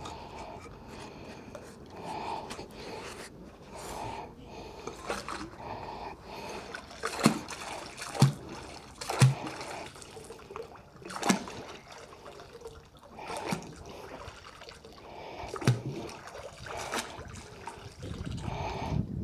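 Canal water splashing and trickling as a fishing magnet on a rope is worked in the water at the bank's edge, with several sharp knocks in the middle of the stretch.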